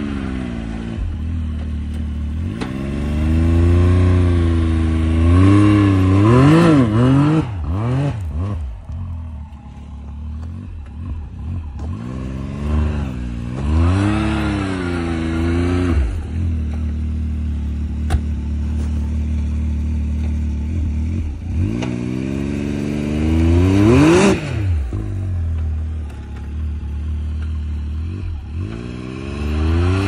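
Can-Am side-by-side's engine idling and revving up and down in several surges as it sits stuck in deep snow, straining to tow a stuck ATV free without success.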